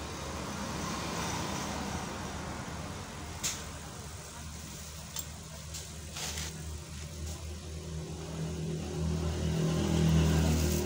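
A low, steady engine hum that swells louder near the end, with a few short sharp clicks.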